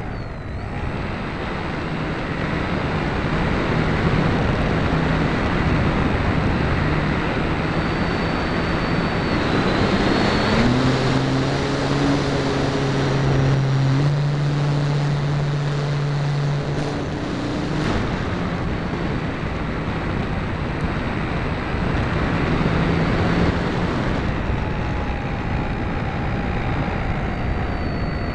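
Radio-controlled airplane's motor and propeller heard from a camera on board in flight, buried in heavy wind rush. The motor's low tone shifts in pitch a few times, strongest from about ten to eighteen seconds in.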